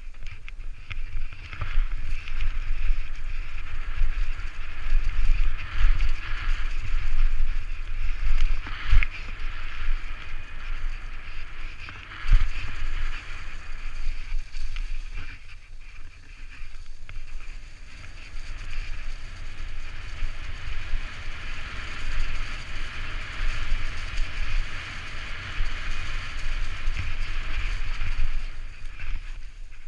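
Propain Tyee enduro mountain bike riding fast downhill on a forest trail: tyres rolling over dirt and dry leaves, with wind buffeting the helmet-mounted microphone. A couple of sharp knocks from bumps come around nine and twelve seconds in.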